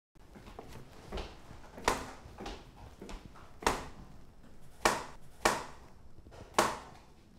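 Kitchen knife chopping a cucumber on a cutting board: single sharp chops at an unhurried, uneven pace, about one a second.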